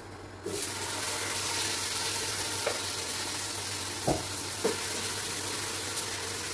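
Chopped okra dropped into hot red palm oil in a pot on the stove, bursting into a loud frying sizzle about half a second in that keeps going, with a couple of sharp knocks as it is stirred.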